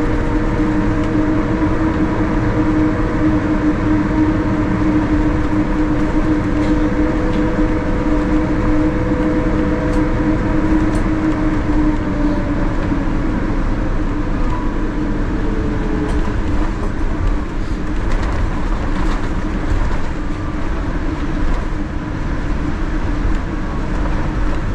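Cabin noise of a Boeing 787-10 taxiing after landing: the steady rumble of its Rolls-Royce Trent 1000 engines at idle and the aircraft rolling on the taxiway. A few steady hums in it slowly drop in pitch and fade out about halfway through.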